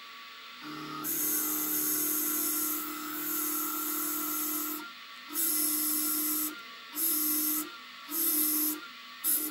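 Milling machine cutting into old saw-blade steel. Over a faint steady hum, the cutter bites in with a hissing, high-pitched cutting noise and a steady low tone. After one long cut of about four seconds come three or four shorter bursts, with brief pauses between them.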